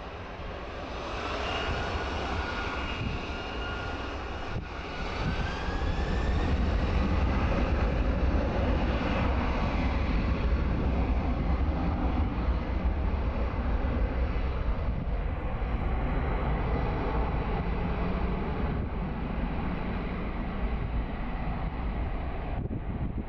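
Jet engines of a departing Boeing 767-300F freighter, a loud steady jet noise that builds over the first few seconds, with a fan whine that rises in pitch about five seconds in.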